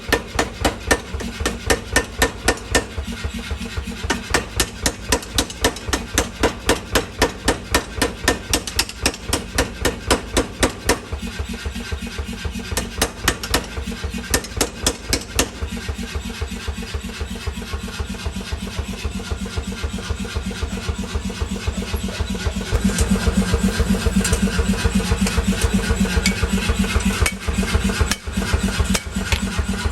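Power hammer forging a steel knife blank: a steady run of evenly spaced blows, about three a second, over the hum of its running motor. About two-thirds of the way through, the motor hum grows louder and the blows become less distinct.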